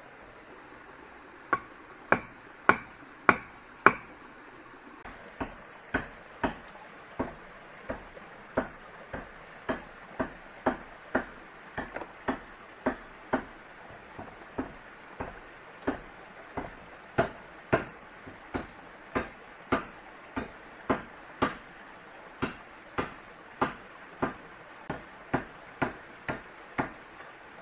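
A hand tool striking wood over and over: five loud blows about half a second apart, then a steady run of lighter blows at somewhat under two a second.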